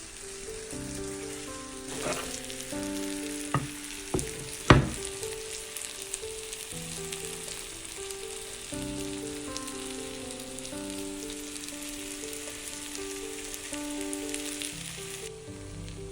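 Chicken tikka sizzling as it fries in a hot pan, with a few sharp knocks of a utensil, the loudest about five seconds in. The sizzling stops about a second before the end.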